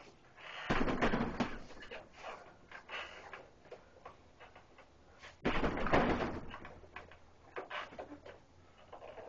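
Punches landing on a hanging heavy bag: irregular thuds and slaps, with two louder flurries, about a second in and just past the middle.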